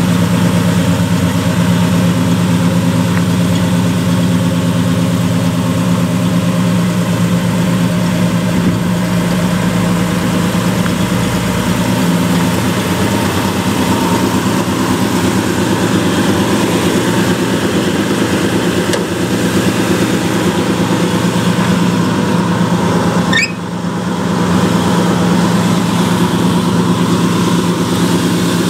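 1970 Dodge D100 pickup's 318 cubic-inch V8 idling steadily.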